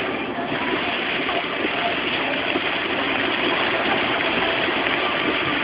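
Steady hiss of heavy rain on a moving car and its tyres on the wet road, heard from inside the car.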